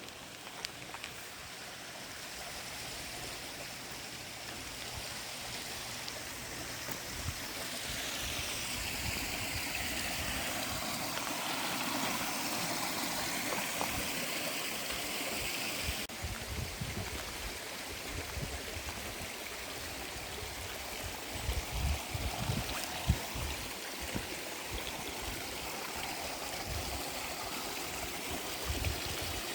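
Stream water flowing steadily over rocks. The rush swells for a while in the middle, with a few brief low thumps in the second half.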